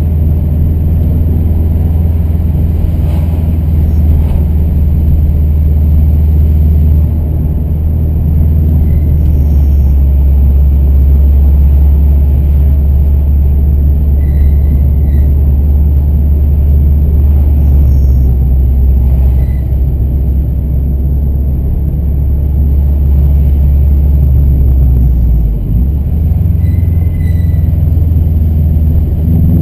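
Car engine and road noise heard from inside the cabin: a steady low drone while cruising, with a brief dip in level near the end.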